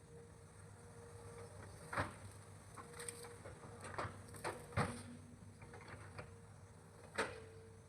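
Excavator engine running steadily with a low hum, broken by several sharp knocks, the loudest about two, five and seven seconds in.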